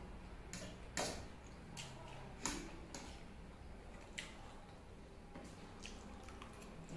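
Close-up eating sounds of chicken chow mein noodles: wet chewing and mouth clicks, with a steel fork working the noodles on a steel plate. A string of short, sharp ticks, the loudest about one second in and again about two and a half seconds in.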